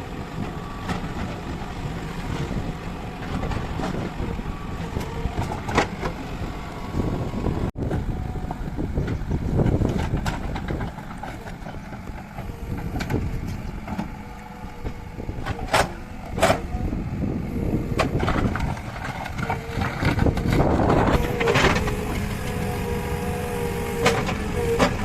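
JCB 3DX backhoe loader's diesel engine running while it works, a steady low rumble with a few sharp knocks and clanks.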